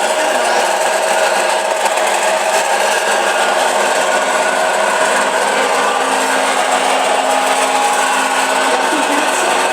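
Samsung washer-dryer in its spin cycle, running with a steady, unbroken rubbing noise over a low steady hum, the abnormal spin noise that the machine is being checked for.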